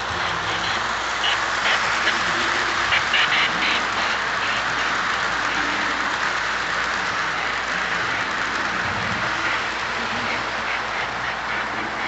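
Lionel O-gauge freight cars rolling past on three-rail track: a steady rolling noise with quick clicks of wheels over the rail joints, busiest in the first few seconds.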